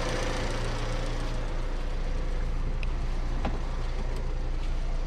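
Car engine idling steadily with the air-conditioning compressor engaged. The treated accessory belt runs quietly, without its usual whistle or squeal.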